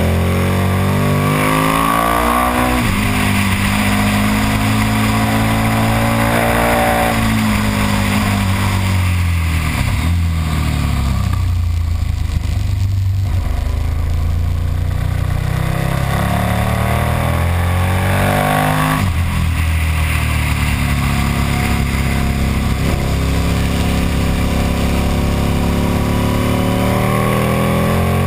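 KTM Super Duke's V-twin engine running hard on track, its pitch climbing under acceleration, breaking sharply at gear changes and winding down as the throttle is closed for corners, heard from the bike itself over the rush of wind.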